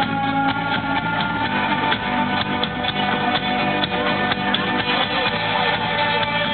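Indie rock band playing live, guitars prominent in the mix, in a loud, muffled amateur recording that lacks all treble.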